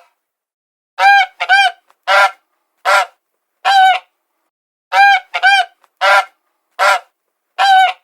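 A large bird honking over and over: about a dozen short honks, some in quick pairs or triples, with clean gaps between them.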